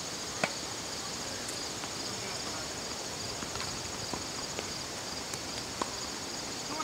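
A steady, high, finely pulsing chorus of insects from the surrounding trees. Over it comes a sharp pop of a tennis ball struck by a racket about half a second in, with a few fainter pops later.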